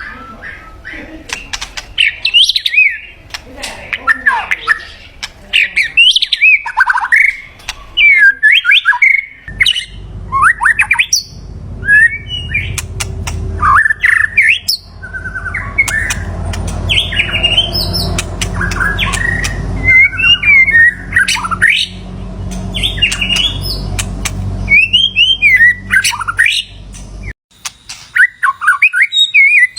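White-rumped shama singing: a rapid run of loud, varied whistled phrases, short notes sliding up and down. A low rumble sits underneath through much of the middle.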